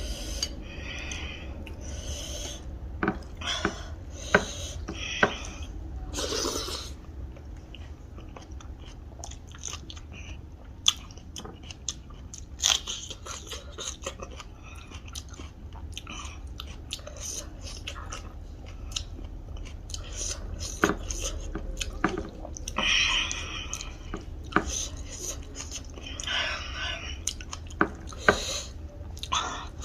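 Close-up chewing and biting of a person eating dal bhat with fried pork and mustard greens, with many short clicks and small crunches.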